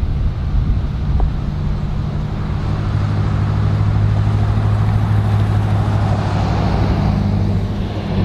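A car on the road: a steady low engine hum under road noise that swells a few seconds in and eases again near the end.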